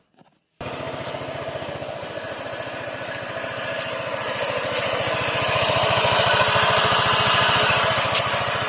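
Honda ADV150 scooter's single-cylinder engine running with the rear wheel lifted, driving the CVT pulley; the revs rise gradually partway through, then ease slightly near the end. The owner hears a shara-shara rattle from the pulley and suspects a failed bearing.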